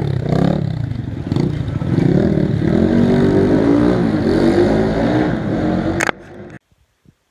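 Dirt bike engine running and revving, its pitch rising and falling. About six seconds in there is a sharp knock, and the sound cuts off abruptly.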